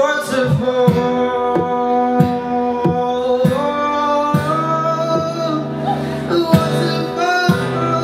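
Acoustic guitar played flat across the lap, with a percussive hit on its body about every two-thirds of a second under long held notes that glide and bend.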